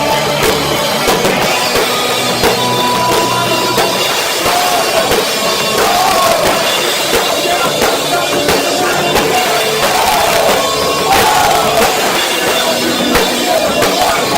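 A rock band playing live and loud, with drums and a singer, recorded on a cheap cell phone, so the sound is harsh and muddy.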